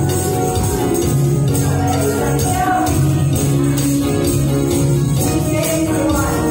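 A woman singing a Taiwanese-Mandarin pop song into a handheld microphone over an amplified backing track, with hand-held tambourines jingling along to the beat.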